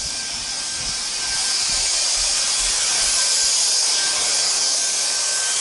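A steady, bright hiss of rushing air or spray with a faint thin whine running through it, growing louder over the first couple of seconds.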